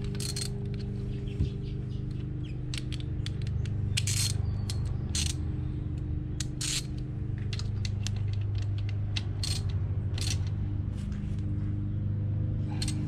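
Socket ratchet clicking in short, irregular runs while a motorcycle's 17 mm oil drain bolt is turned back in, over a steady low hum.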